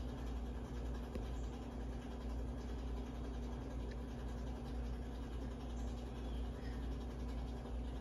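52-inch Hunter Caicos ceiling fan running steadily, a constant motor hum under the whoosh of the spinning blades. The fan has a bad capacitor, which leaves it turning slower than it should.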